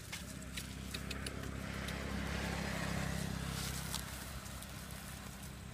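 A motor vehicle passing by: its engine hum and road hiss swell to a peak about three seconds in, then fade. Faint clicks sound throughout.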